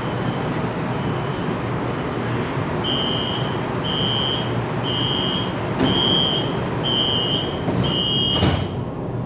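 LRT train's door-closing warning buzzer beeping, a high beep about once a second, faint at first and much louder from about three seconds in. Near the end the sliding passenger doors shut with a thud.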